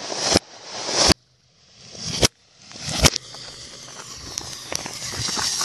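Fireworks played in reverse: four bangs, each heard as a rising rush that cuts off abruptly, about a second apart. They are followed by a reversed crackling and hissing that swells through the second half.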